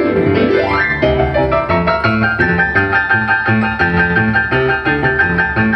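Kawai piano played in a rock-and-roll style: a fast glissando sweeps down the keys and back up at the start, then repeated rhythmic chords over moving bass notes.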